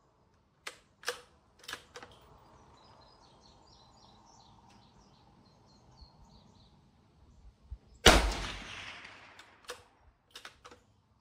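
A single shot from a Rossi RB22M .22 WMR bolt-action rifle about eight seconds in, the loudest sound, with a long echoing tail. Several sharp clicks of the rifle being handled come before it, and a few more follow the shot.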